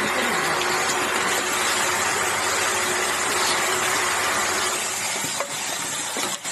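Automatic aerosol-cap assembly machine running with a steady hiss, easing a little about five seconds in.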